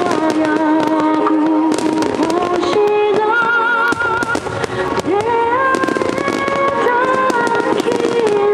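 Music with a slow, held melody and a wavering voice-like line, over fireworks bursting and crackling in many quick sharp pops throughout.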